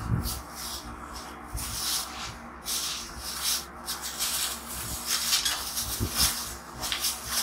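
Hands rubbing and ruffling through long, thick hair, a scratchy rustle in irregular strokes several times a second.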